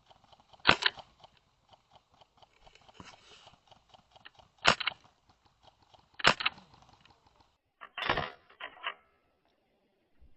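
Airsoft gun firing single shots: three sharp cracks a couple of seconds apart, then a quick run of several more near the end.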